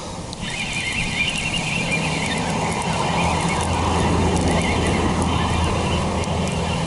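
A low engine hum, likely a passing vehicle or motor, swells over a few seconds and eases off, over a steady background hiss.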